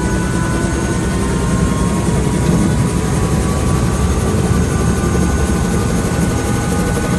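Helicopter engine and rotor running on the ground, heard from inside the cabin: a loud, steady drone with a faint high whine.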